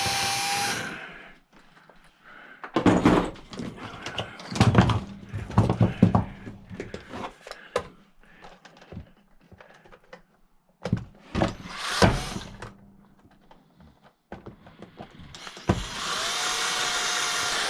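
Power drill-driver running steadily on a screw in a plastic case and stopping about a second in, then scattered clicks and knocks of plastic parts and tools being handled, then the drill running steadily again for the last couple of seconds. The screw is stripped.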